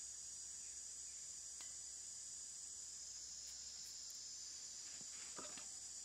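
Steady high-pitched drone of insects, with a few faint clicks and rustles near the end as the plastic strip and wire fan guard are handled.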